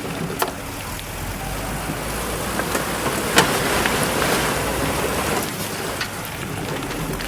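Heavy earthmoving machinery at work: a diesel engine hums low under a rushing, crackling noise of rock and soil on the move, with a few sharp knocks. The rush swells through the middle and eases off near the end.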